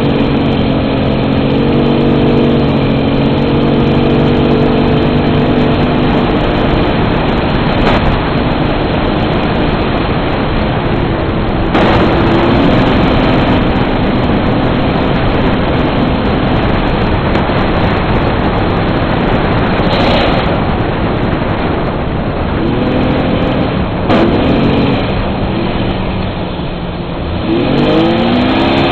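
Old Jeep Cherokee driving off-road, heard from its front bumper: the engine running under a loud, steady rushing and rumbling noise, its pitch rising and falling a couple of times near the end as it is revved.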